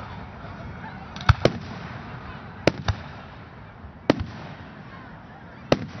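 Aerial firework shells bursting at a fireworks display: about seven sharp bangs, mostly in close pairs, coming roughly every one and a half seconds.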